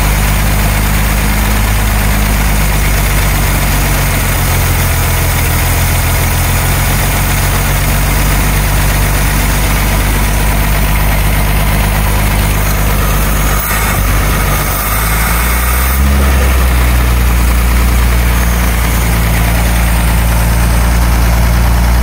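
1948 Bedford truck's six-cylinder petrol engine idling steadily as its carburettor and throttle linkage are adjusted by hand. About two-thirds of the way through, the engine note shifts in pitch and gets louder. The carburettor is badly worn and the engine poorly tuned, which the mechanic blames for the idle fluctuating.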